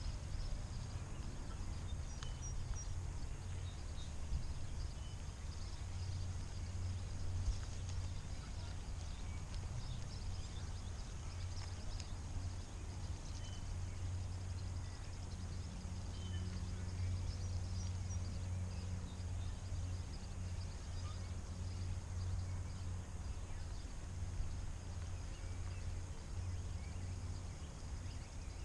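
Steady low rumble of outdoor background noise, with faint, scattered bird chirps now and then.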